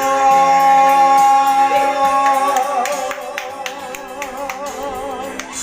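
Karaoke music played through a mini videoke speaker: the song's closing bars, with steady sustained chords, then a long held note with vibrato from about two and a half seconds in, over light regular percussion.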